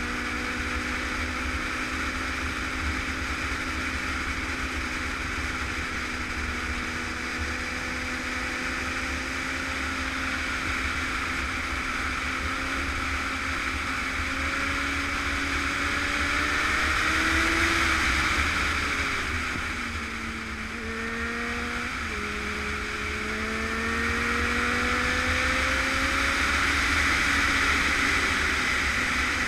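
Motorcycle engine under way, its note rising and falling with the throttle: it eases off past the middle of the stretch, then climbs steadily toward the end. A steady rush of wind runs beneath it.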